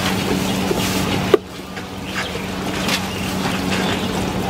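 A knife cutting and scraping a fish on a wooden chopping board, with short taps and scrapes and one sharp knock about a second in. Behind it runs a steady low machine hum.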